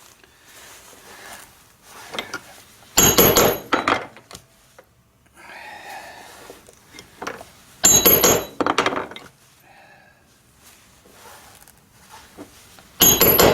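Mallet striking a multi-prong stitching chisel to punch stitching holes through leather: three bursts of several quick, sharp blows with a metallic ring, a few seconds apart, with quieter handling of the tool between.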